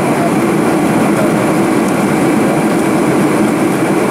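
Steady cabin noise inside a Boeing 747-400 in flight: an even drone of engines and air rushing past the fuselage, unchanging throughout.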